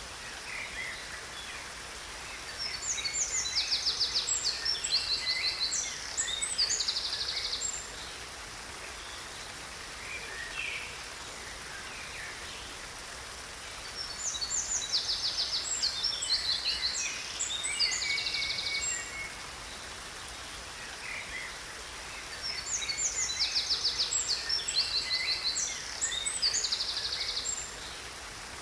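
Songbird singing three similar bouts of rapid trills and chirps, each a few seconds long and about ten seconds apart, over a steady rush of waterfall water.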